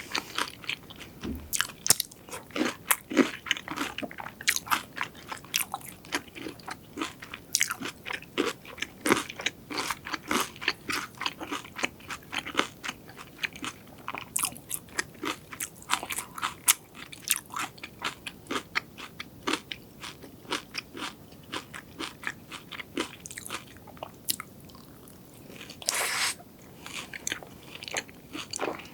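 Close-miked crunching and chewing of crispy fried food: a dense, irregular run of sharp crunches, several a second, with one longer, louder crunch-like noise near the end.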